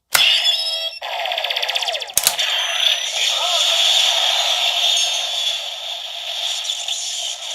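CSM Lost Driver toy belt playing its electronic sound effects through its small built-in speaker: a sharp click at the start, a short run of effect sounds, another click about two seconds in, then a long steady effect sound.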